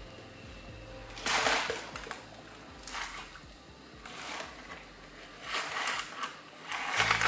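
Background music: hissing swells that come at an even beat about every second and a half, over a faint low hum.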